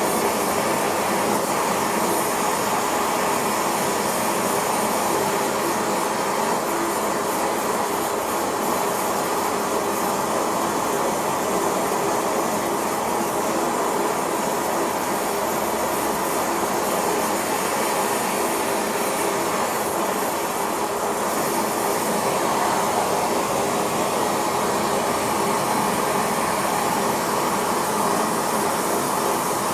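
Steady rushing noise of the metal-melting setup running, unchanging throughout, with a faint steady hum in it.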